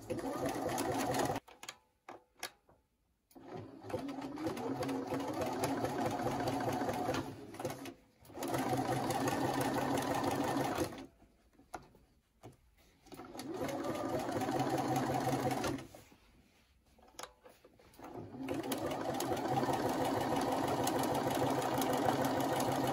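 Electric sewing machine stitching through layered denim, running in about five stretches of two to five seconds with short stops between them as the fabric is repositioned.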